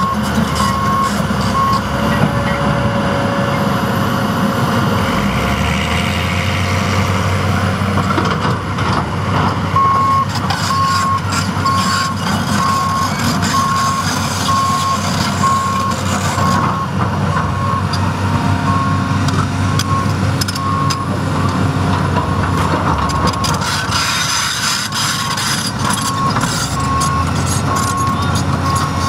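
John Deere 330C LC excavator's diesel engine running steadily as the machine works, with a backup alarm beeping at an even pace for the first couple of seconds and again from about ten seconds in.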